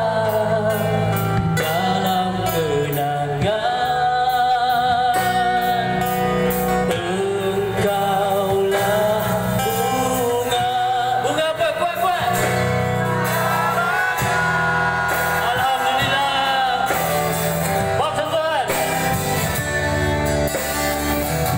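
Live rock band playing through an amplified PA: a man sings into a microphone with long held notes over electric guitar and drums.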